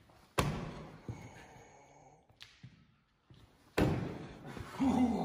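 Two loud sudden bangs about three and a half seconds apart, each dying away over a second or so, followed by a man's short groan near the end.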